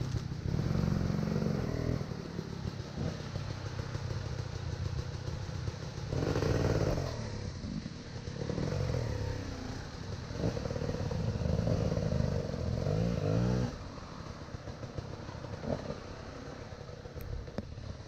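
Motorbike engine revving up and dropping back several times, with a rising rev that cuts off suddenly about two-thirds of the way in.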